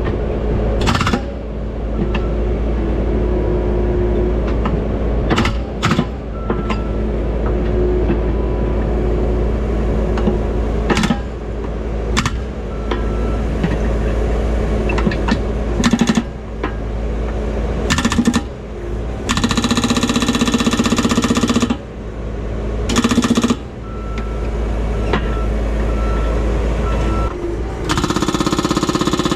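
Bobcat T770 compact track loader's diesel engine running steadily while its hydraulic breaker hammers on thick concrete, chipping out a cut square. It gives single short strikes through the first half, then longer runs of rapid hammering about two-thirds of the way through and again near the end.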